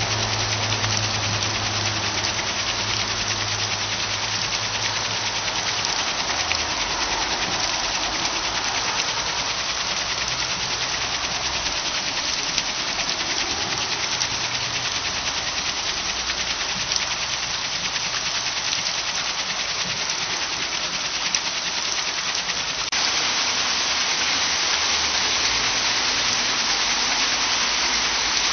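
Water pouring and splashing over a turning mill waterwheel: a steady rushing hiss, with a low hum under it for the first few seconds, growing a little louder and brighter near the end.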